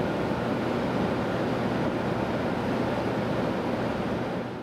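Steady rushing noise from an E7 series Shinkansen train standing at the platform, with no clear tones, fading away right at the end.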